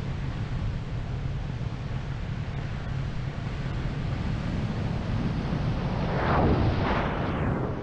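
Wind rushing over the microphone during a powered paraglider's descent with its engine at idle, with a steady low rumble and a louder gust about six seconds in.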